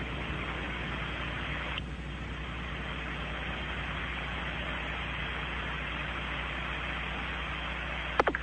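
Steady hiss of static on an open radio communications channel from the Soyuz spacecraft, with two sharp clicks just before the end as the channel keys up for a crew report.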